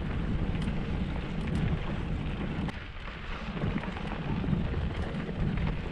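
Mountain bike rolling along a dirt road: tyres rumbling and crunching over the rough surface, with wind buffeting the helmet-mounted camera's microphone. A few sharp clicks and rattles from the bike come through, and the rumble eases briefly about three seconds in.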